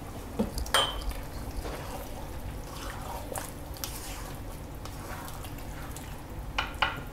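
A spatula stirring thick curry gravy with prawns and drumstick pieces in a pan: wet sloshing and squelching, with a few sharp clicks, the loudest about a second in.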